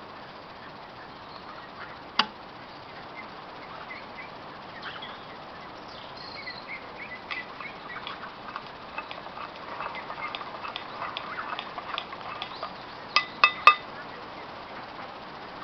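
Kettle boiling with a steady hiss, broken by a sharp click about two seconds in and three quick sharp clinks near the end.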